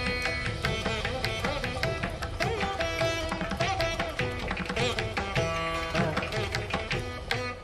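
Indian-style instrumental background music with plucked strings and drums.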